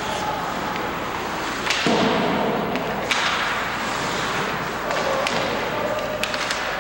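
Ice hockey play on a rink: several sharp clacks of sticks and puck over the steady noise of skates and the arena.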